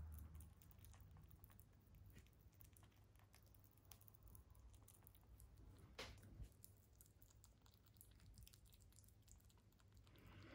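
A mini lop rabbit chewing soft banana: faint, quick clicks of its teeth and mouth, with one sharper click about six seconds in.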